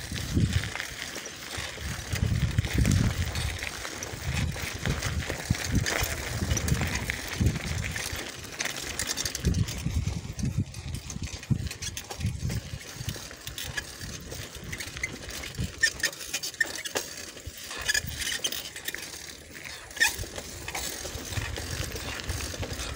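Bicycle ridden over a rough dirt and gravel track: tyre and frame rattle with scattered sharp clicks, and wind buffeting the microphone in low gusts.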